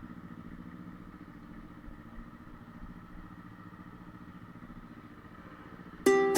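Motorcycle engine idling faintly and steadily. Ukulele-style plucked music comes in loudly right at the end.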